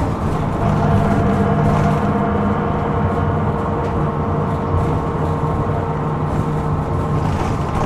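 Hino Rainbow II diesel bus driving, heard from inside the passenger cabin: a steady engine drone with road noise. A thin steady whine sits over it and fades out near the end; the bus is recorded for an abnormal noise.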